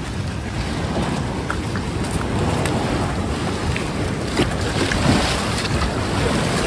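Wind buffeting the microphone over the steady wash of surf and shallow waves breaking on the rocks.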